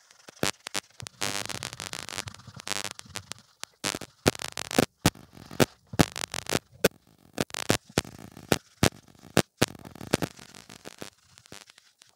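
A cloth scrubbing toothpaste over an electric iron's soleplate to lift melted fabric stuck to it. A rasping rub about a second in gives way to many sharp, irregular clicks and knocks.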